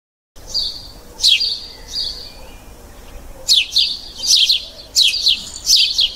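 Small birds chirping: quick high chirps that sweep downward, coming in clusters, with a held high whistle between them. It starts about half a second in, a morning birdsong effect.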